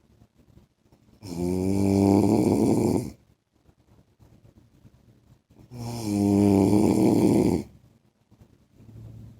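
A man snoring in his sleep: two long snores, each about two seconds, about four and a half seconds apart, with near quiet between them.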